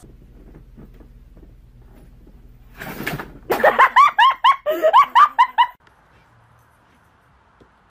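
A dog whining in a quick run of about ten high-pitched rising-and-falling cries, over roughly two seconds, after a brief rustle.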